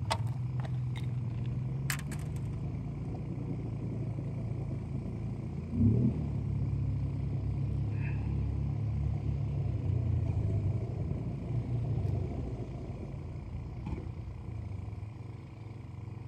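A motor running steadily with a low hum. It briefly rises in pitch and swells louder about six seconds in. A few sharp clicks sound near the start.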